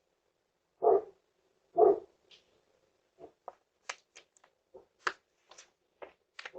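A dog barks twice, about a second apart, followed by a run of faint, irregular clicks and ticks.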